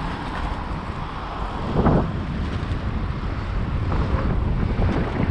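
Wind rushing over the microphone and rolling road noise while riding a bicycle along a paved path beside street traffic, with a brief louder swell about two seconds in.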